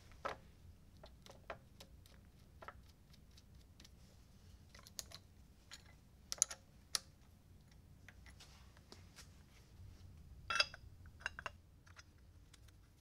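Irregular light metallic clicks and taps of a small open-end wrench being fitted and turned on the compound-rest nuts of a 1930s LeBlond Regal lathe carriage. The loudest clicks come about six and a half and ten and a half seconds in.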